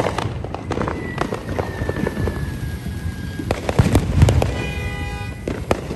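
Neighbourhood fireworks going off in a string of crackles and pops. A long whistle falls slightly in pitch through the first half, heavier bangs come about four seconds in, and a steady pitched tone sounds near the end.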